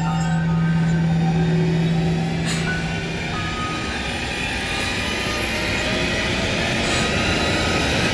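Ominous horror-score drone: a dense low rumble under a held low tone that drops out about halfway through, then a sustained higher tone, with a faint high whine slowly rising.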